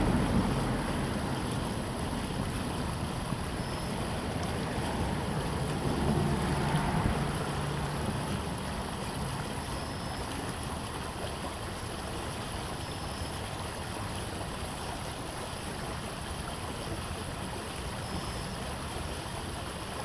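Shallow brook running and rippling, a steady rush of flowing water that swells briefly about six seconds in.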